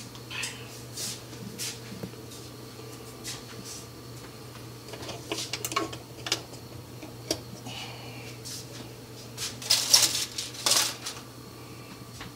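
Scattered clicks and knocks of things being handled, with a louder burst of clattering about ten seconds in, over a steady low hum.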